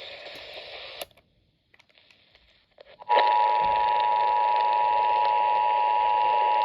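NOAA Weather Radio warning alarm tone, the 1050 Hz tone sent ahead of a severe thunderstorm warning: one steady single-pitch tone over radio hiss. It starts suddenly about three seconds in, after a couple of seconds of dead air.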